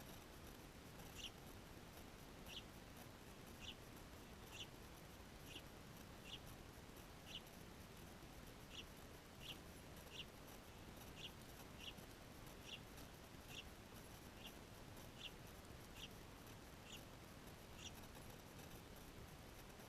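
A small bird chirping faintly, with short high-pitched chirps about once a second, over a low background hiss.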